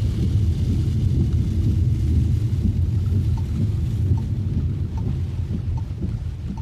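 A car driving in heavy rain: a steady low rumble of road and rain noise with a hiss of rain above it. From about halfway in there are faint, regular ticks a little more than once a second.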